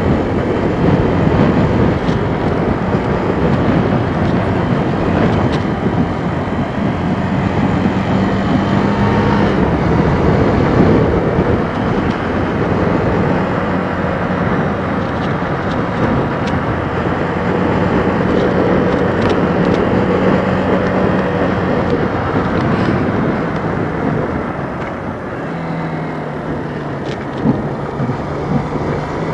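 Kawasaki KLX125's single-cylinder engine running on the move, its note stepping up and down in pitch, under a steady rush of wind on the helmet-mounted microphone. A couple of short knocks come near the end.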